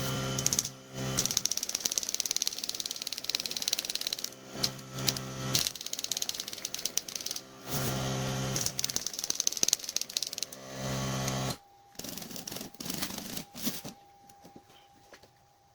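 Royal No. 5 manual typewriter's typebars and carriage clicking and clattering in fast runs. A steady pitched hum comes and goes several times, and the clicking thins to a few scattered clicks near the end.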